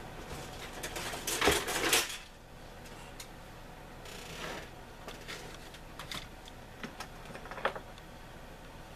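Plastic model-kit sprues rattling and clattering as they are handled and lifted from the kit box, with a burst of rustling about one to two seconds in, then scattered light clicks of plastic on plastic.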